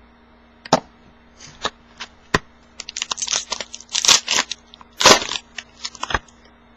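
Trading-card pack wrapper being torn open and crinkled, with sharp clicks of card stock being handled. The crinkling comes in short bursts, thickest from about three seconds in, with single snaps about one, two and a half and six seconds in.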